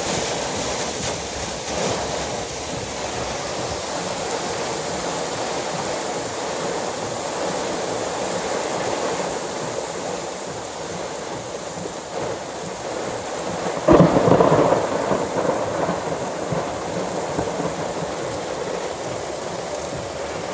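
Storm wind and rain as a steady rushing noise, with a sudden loud thunder crack about two-thirds of the way through that rumbles away over a couple of seconds.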